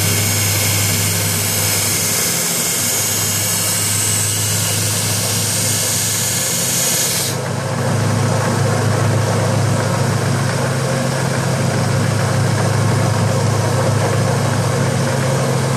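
1x30 belt sander running, with a steel sword blade held against the belt for the first seven seconds or so, grinding down its blunted edge with a loud hiss. The hiss cuts off suddenly as the blade comes off the belt, and the sander runs on with a steady hum.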